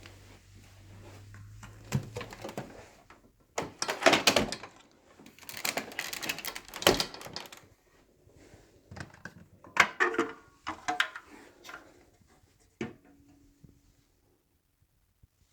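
Handling noise: a series of clicks, knocks and rattles, as of hard parts being moved and fitted together. A low hum stops about two seconds in.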